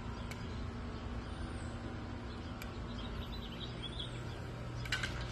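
Outdoor ambience: a steady low hum with faint bird chirps about three to four seconds in, and a couple of sharp clicks near the end.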